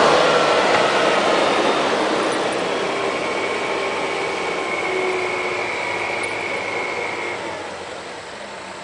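Farm tractor engine working hard as its rear wheels churn in deep mud, a faint steady whine sounding through the middle, the noise easing off gradually toward the end.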